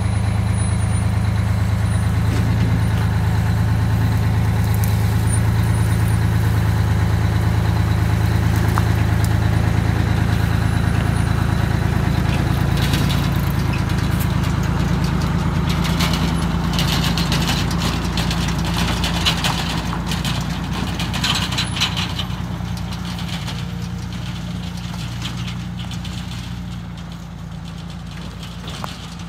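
GMC 4104 bus's Detroit Diesel two-stroke engine running as the bus pulls away, with a stretch of harsher noise partway through, then fading steadily as the bus drives off into the distance.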